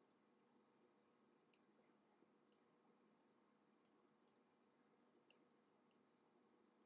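Near silence broken by about six faint, irregular clicks from a computer mouse.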